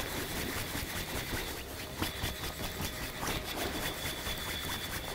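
Steady rush of a fast, shallow river flowing over gravel, an even wash of water with fine splashing.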